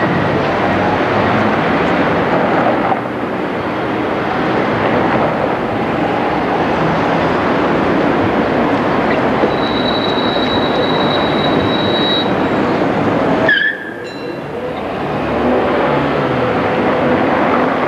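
Street traffic and an approaching articulated tram rumbling along street track. Midway there is a high, steady wheel squeal lasting about three seconds, and another starts near the end.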